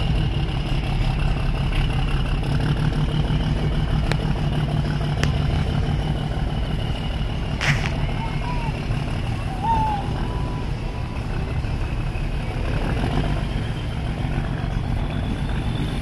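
Steady low rumble of riverboat engines, with a single sharp knock about halfway through and a couple of short high chirps just after it.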